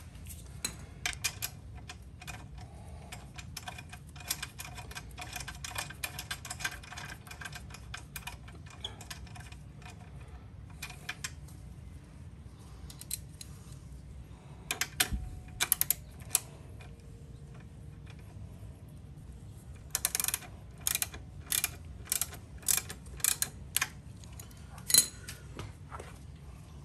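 Irregular sharp metallic clicks and ticks from hand tools working on the motorcycle's engine guard mounting. The clicks come in quick runs early on and as separate, louder clicks near the end, over a steady low hum.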